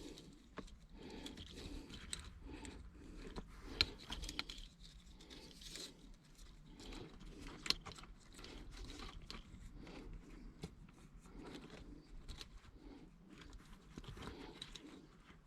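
Faint handling sounds of wiring being worked by hand at close range: scraping and rustling, with two sharp clicks, about four and eight seconds in.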